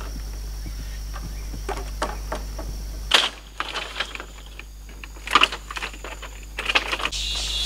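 Split bamboo floor slats knocking and clattering as they are laid onto a bamboo frame, with sharp knocks a little after three seconds, around five and a half seconds and near the end. Before that, a steady low hum with insects chirping.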